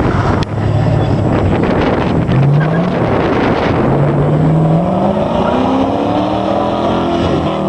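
Performance Ford Fiesta's engine revving hard under load, its pitch climbing twice: a short climb about two seconds in, then a longer one from about four seconds. The engine noise is loud and dense.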